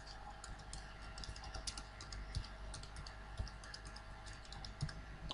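Typing on a computer keyboard: a faint, irregular run of light keystroke clicks.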